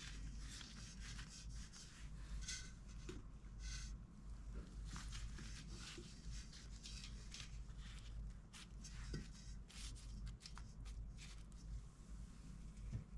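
Soft, irregular rustling and brushing of hands packing stuffed grape-leaf rolls against each other and the side of a stainless steel pot.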